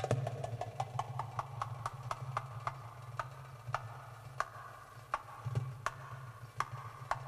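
Belly dance music: dry, clicking percussion strokes, quick at first and then more widely spaced, over a low steady drone.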